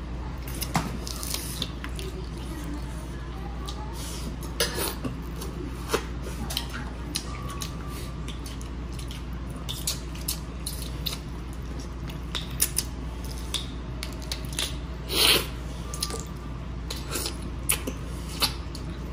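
Leas hal clams being eaten by hand: scattered small clicks and taps of the shells being pried open and set down, with one louder, longer sound about fifteen seconds in. A steady low hum runs underneath.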